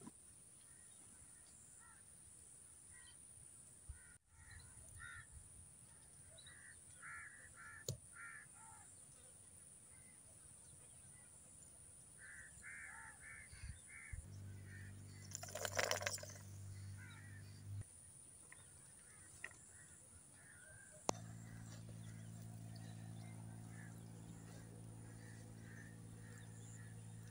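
Birds calling in short groups of quick repeated notes. A brief loud noise comes about halfway through, and a low steady hum sets in for a few seconds, then comes back and runs through the last part.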